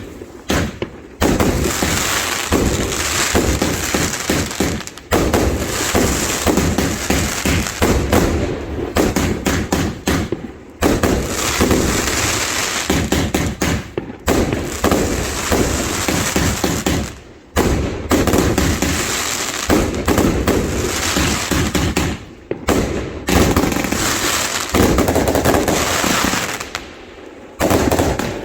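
Firework display barrage: long runs of rapid bangs and crackling, broken by brief pauses every few seconds.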